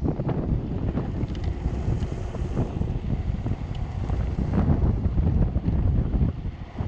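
Wind buffeting the microphone on a moving homemade electric go-kart, a fluctuating low rumble with no motor tone standing out.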